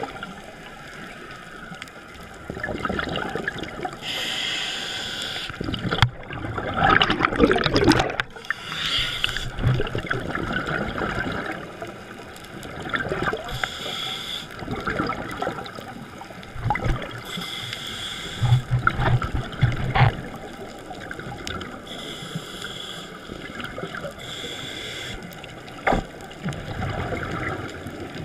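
Scuba breathing underwater through a regulator: a hissing inhalation about every four seconds, each followed by bubbling, gurgling exhalation. The bubbling is loudest about seven seconds in.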